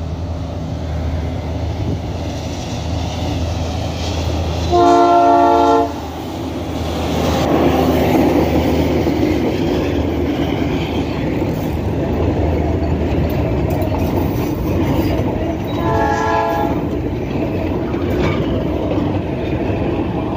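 Progress Rail EMD PR7 diesel locomotive approaching with its engine running, then sounding its horn in a loud blast about a second long, about five seconds in. It then passes close by pulling passenger coaches, wheels clacking over the rails, with a second, shorter horn blast about sixteen seconds in.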